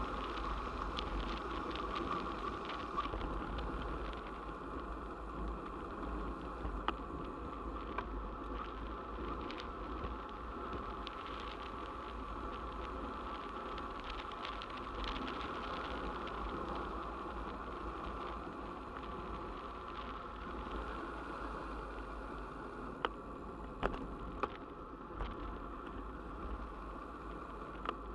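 Steady rushing of air and tyre noise as a bicycle rolls along a tarmac road, with wind buffeting the camera's microphone. A few sharp ticks and knocks from the bike over bumps, several close together near the end.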